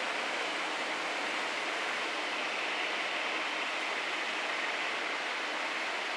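Steady rushing jet noise of an Airbus A330-300's two GE CF6 turbofans at taxi power as the airliner rolls past, an even hiss without tones or changes.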